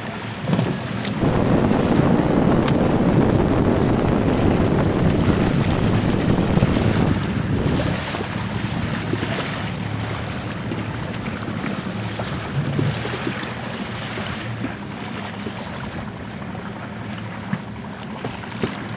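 Wind buffeting the microphone over the wash of waves on open water, heavier for the first several seconds and then easing a little.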